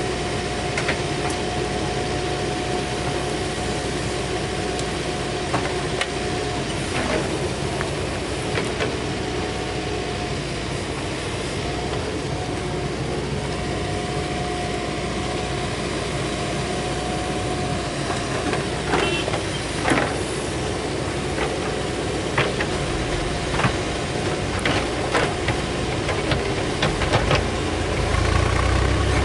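Diesel engine of a Mahindra backhoe loader running steadily under work, with a steady whine over the engine note and scattered sharp knocks and clanks, more frequent in the second half. Near the end the engine note grows heavier as it works harder.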